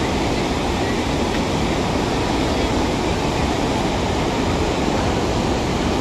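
Bharachukki waterfall on the Kaveri river in heavy flow: a loud, steady, even rush of falling water.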